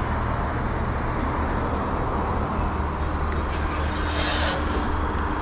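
City bus running, a steady low engine rumble mixed with road traffic noise.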